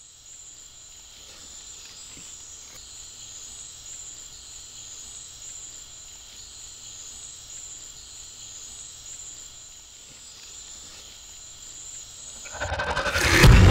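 Night-time forest ambience: insects chirring in a steady, slightly pulsing high band over a faint low drone. Near the end a loud rush of noise swells up and breaks into a deep boom.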